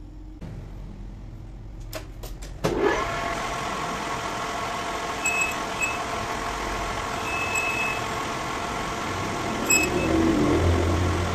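A few clicks, then a metal lathe starts about three seconds in and runs steadily with its chuck spinning. A cutting tool works inside the bore of the spinning steel part, giving a few brief high squeals.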